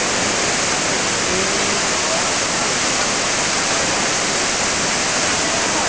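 Khone Phapheng Falls on the Mekong, a large volume of water rushing over the cascades in a loud, unbroken roar.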